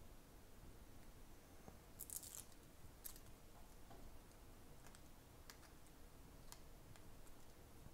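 Near silence, with a brief soft rustle about two seconds in and a few faint, scattered clicks.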